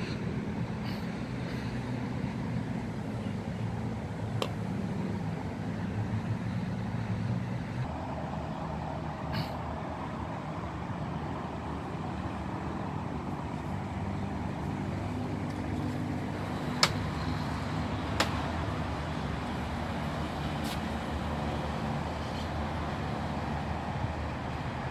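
Steady motor-vehicle traffic noise with a low engine hum. A few sharp taps break through it, the two loudest a little over a second apart past the middle.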